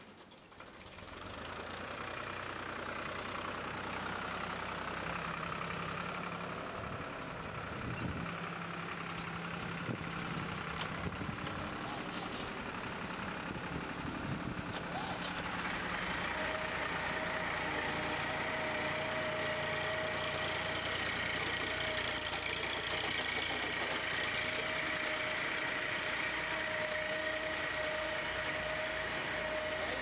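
Tractor diesel engine running while its hydraulic front-end loader lifts fodder into a TMR feed mixer wagon. About halfway through, a steady high whine joins the engine and holds.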